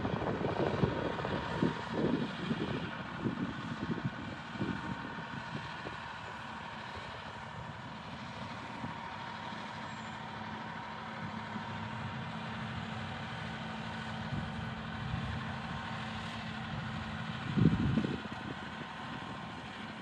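Steady hum of a far-off motor vehicle engine. Wind buffets the microphone in low gusts during the first few seconds and once more near the end.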